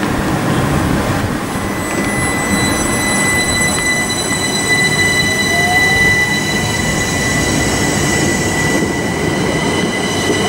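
Southeastern Class 375 Electrostar electric multiple unit departing and rolling past close by, with a continuous rumble. From about two seconds in a set of high, steady whining tones joins the rumble and holds.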